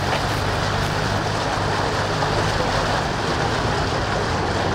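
Floodwater of the swollen Seine rushing hard around a stone bridge pier as a steady, unbroken noise, with a low steady hum beneath it.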